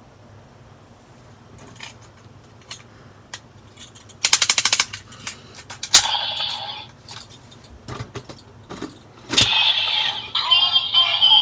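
Plastic clicks and a quick ratchet-like rattle from handling a Bandai DX Cross-Z Dragon toy and its Dragon Full Bottle, then two bursts of the toy's electronic sound effects from its small speaker, each set off by a click, the second longer and louder.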